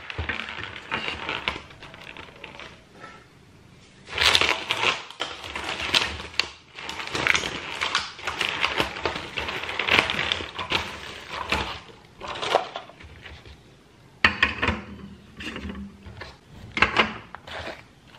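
Plastic film crinkling over a pulp tray of eggs as it is handled and pulled away, with hard eggshells clicking against plastic as eggs are set one by one into a clear plastic egg holder. The sounds come in clusters of short crackles and clicks, with a quiet pause in the middle.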